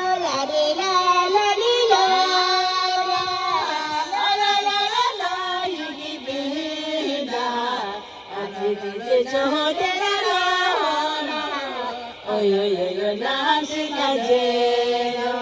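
A high voice singing a melodic song in long, held, bending notes, in phrases broken by short pauses about 8 and 12 seconds in.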